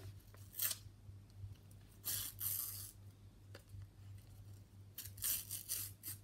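Panini sticker packet being torn open and its stickers handled: brief bursts of paper tearing and rustling, the longest about two seconds in and another about five seconds in.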